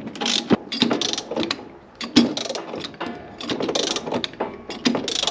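Socket ratchet wrench clicking in repeated strokes as it turns the threaded rods of a motorcycle spring compressor, squeezing the coil spring on a KYB shock. There is a short pause about two seconds in.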